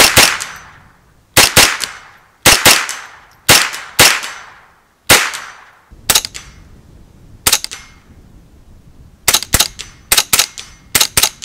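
Shots from a CZ Scorpion EVO 3 S1 semi-automatic .22 LR carbine, each a sharp crack with a short echo. They come singly or in close pairs about once a second, then a quick string of shots fires in the last few seconds.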